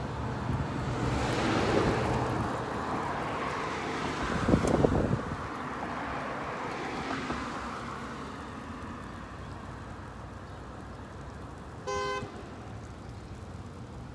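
Road traffic passing close by: vehicles swish past, the loudest about four and a half seconds in, and a car horn gives one short beep near the end.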